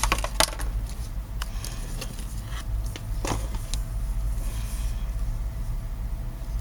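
A toy spinning top whirring as it spins on a surface, a steady low rumble with a few sharp clicks in the first few seconds.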